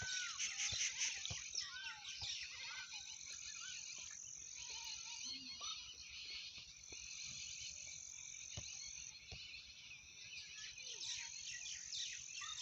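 Soft, steady sizzling of boiled potato and cauliflower frying in hot oil and masala in a large kadhai, with scattered clicks as a long ladle stirs and scrapes the pan and a few faint high chirps.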